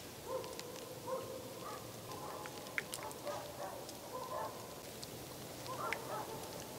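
Faint animal calls: a series of short pitched calls, in clusters over the first couple of seconds and again near the middle and end, with brief high bird chirps scattered through.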